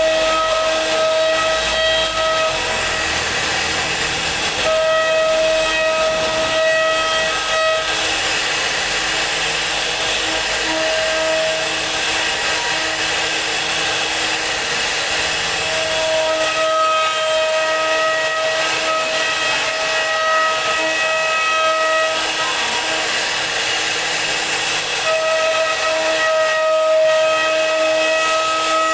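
CNC router spindle running, its carving bit cutting an ornamental relief into wood: a steady loud hiss under a constant hum, with a high whine that comes and goes every few seconds.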